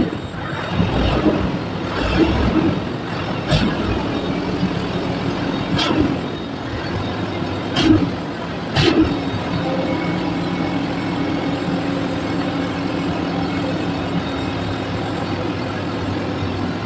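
Truck's diesel engine running at the exhaust pipe, uneven with several short surges and clicks in the first half, then settling into a steady idle.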